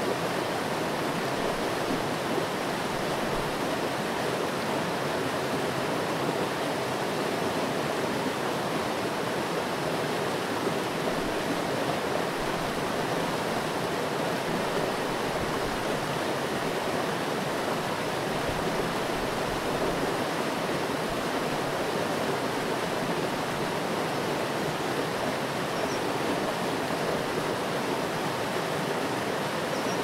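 Stream water rushing steadily as it pours over a small rocky cascade into a pool.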